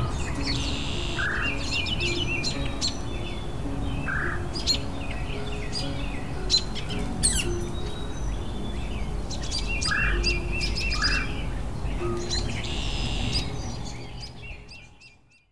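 Wild songbirds chirping and trilling over soft background music, all fading out near the end.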